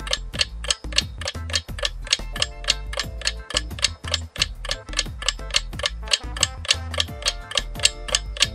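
Ticking clock sound effect at about four ticks a second, over background music with a low bass line: a countdown timer running while the puzzle waits for a guess.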